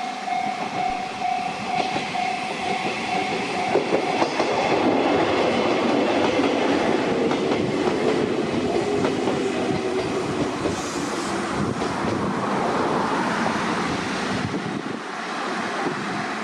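Iizaka Line electric train passing over a level crossing, its wheels clattering over the rail joints. A steady tone sounds at first and cuts off about four seconds in, as the train noise grows louder and then eases toward the end.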